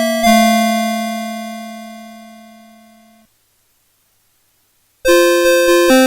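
Electronic melody chip of a CITIZEN Melody Box 30 alarm clock: a tune ends on a held final chord that fades over about three seconds and cuts off. After nearly two seconds of silence the next tune starts with quickly changing synthesized notes.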